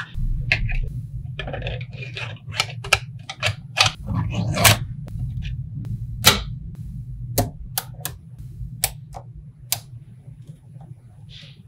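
Small magnetic balls clicking and snapping together as they are placed by hand, a string of sharp, irregular clicks. Two are louder snaps near the middle, and a brief rattle of balls comes early on.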